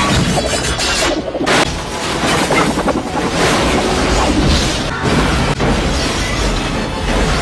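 Film sound effects of a crash-landing cargo plane sliding along the ground and smashing through cars: continuous crashing and grinding with repeated booms and sharp impacts, a hard hit about one and a half seconds in. Orchestral film score plays underneath.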